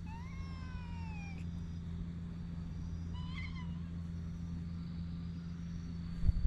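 Domestic cat meowing twice: a long meow of about a second and a half that rises then falls in pitch right at the start, and a shorter one about three seconds in, over a steady low background hum.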